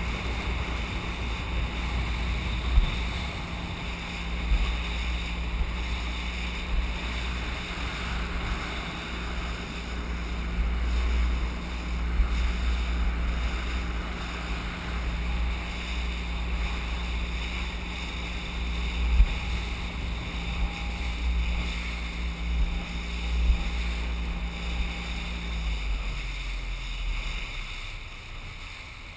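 Outboard motor of an inflatable boat running steadily, with wind rumbling on the microphone and the hull knocking on the waves now and then. Near the end the motor slows and the sound drops.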